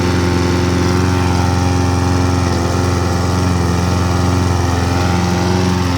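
Petrol lawnmower engine running steadily at a constant speed.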